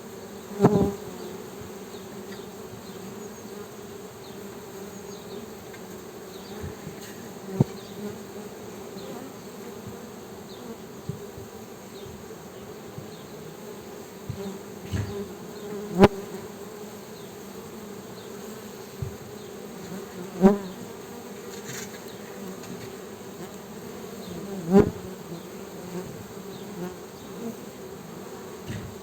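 Honey bees buzzing, a steady hum of many bees, broken by occasional sharp knocks or taps close to the microphone.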